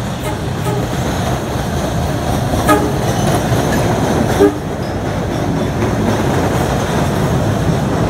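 MBTA Red Line subway train running into a platform and passing close by, its wheels and running gear growing steadily louder. Two very short horn toots sound, about two and a half and four and a half seconds in.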